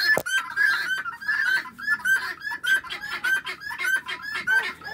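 Flock of domestic helmeted guinea fowl calling: a fast, steady run of short harsh notes, about four a second.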